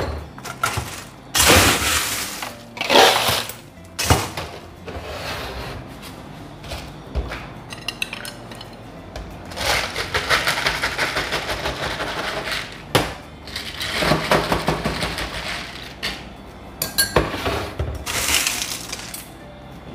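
Ice cubes clattering into a clear plastic cup in a few loud batches in the first seconds. Then the matcha-milk mixture is poured from a measuring jug over the ice, a longer splashing, crackling stretch, with more clinks of ice and spoon near the end.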